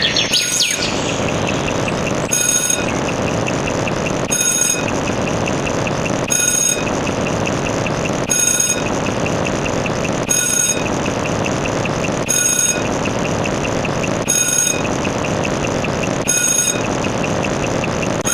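A steady rumbling noise, with a short beeping tone repeating about every two seconds and a fast ticking running over it.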